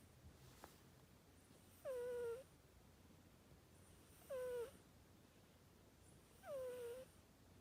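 Siberian kitten snoring in its sleep with a 'poo-poo' sound: three short pitched snores about two seconds apart, each lasting about half a second and sliding down in pitch.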